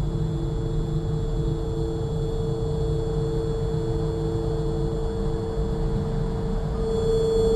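Dark ambient drone music: a low rumble under a steady held mid tone with faint high ringing tones above it, swelling slightly near the end.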